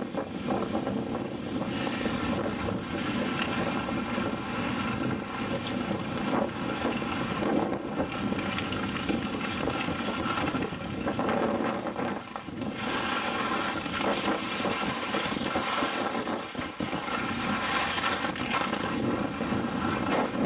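Wind rushing over the microphone mixed with skis hissing and scraping over groomed snow during a fast downhill run, with a brief lull about halfway through.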